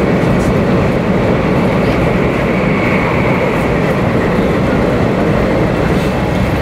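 Steady cabin noise of a 500 Series Shinkansen running: a continuous low rumble and rush from the wheels and the air, with a few faint clicks.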